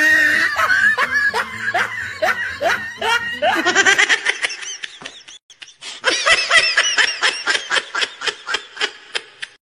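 Several people laughing hard in rapid, repeated bursts. The laughter dies away briefly about halfway through, then breaks out again.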